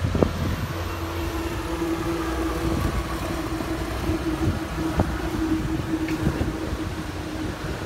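Storm wind and rain noise, with a motor vehicle's steady hum running through it.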